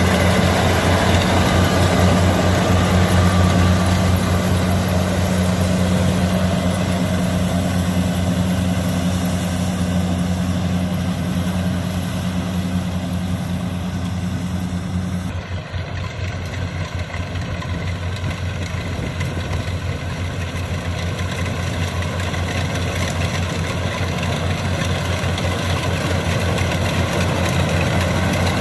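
Heavy farm machine's engine running steadily with a low hum. About halfway through, the tone changes and the level dips briefly, as with a change in throttle or load.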